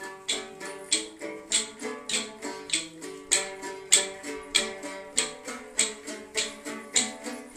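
A plucked string instrument playing a steady, rhythmic folk tune. Strong plucked strokes come a little under twice a second, with lighter notes between them.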